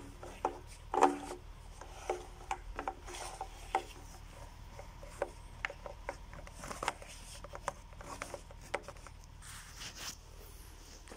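White plastic pipe parts being handled: a Y-fitting and black tubing knocked and rubbed together, with irregular short clicks and knocks. The loudest knock comes about a second in, and there is a longer rub near the end.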